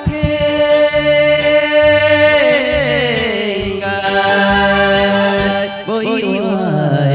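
Singing over an instrumental accompaniment, with long held notes that waver with vibrato and slide down in pitch, once about two and a half seconds in and again about six seconds in.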